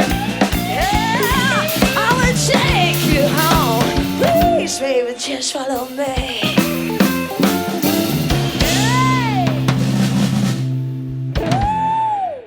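Rock band playing the instrumental ending of a song: full drum kit with snare and bass drum under sustained bass and chords, and a lead line that bends up and down in pitch, holding two long arched notes near the end. The music stops abruptly at the very end.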